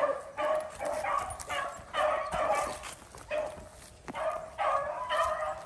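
Pack of beagles baying on a rabbit's trail: quick repeated, overlapping hound cries, about two to three a second, easing briefly about three seconds in before picking up again. The steady chorus is the sign that the hounds are running the rabbit by scent.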